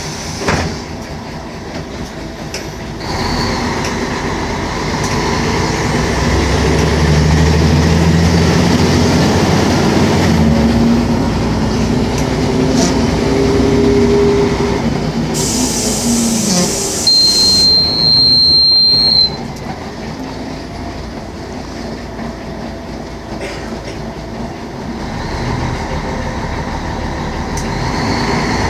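Interior of a Mercedes-Benz O500MA articulated city bus under way: the engine note climbs steadily as the bus gathers speed, then drops. A short sharp hiss follows, then a high beep lasting about two seconds, and the bus runs on more quietly.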